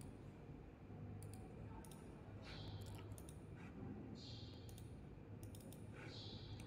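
Computer mouse clicking several times, some clicks in quick pairs like double-clicks, over faint room tone.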